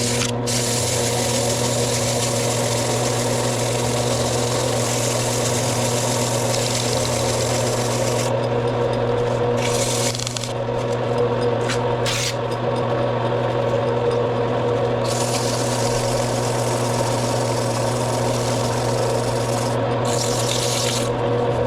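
Bench-mounted motor running steadily with a spinning wheel, and a grinder dog held against it giving a rasping scrub as the rust is taken off. The scrubbing comes and goes several times as the part is pressed on and eased off, while the motor's hum stays even.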